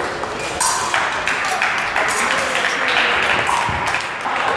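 Mixed voices and crowd noise in a large sports hall, with a few short, sharp sounds through it.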